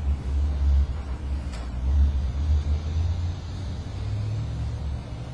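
A low, uneven rumble, with a faint steady hum coming in near the end.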